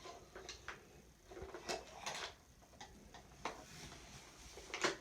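Scattered light clicks, taps and brief rustles from an iPad and its packaging being handled.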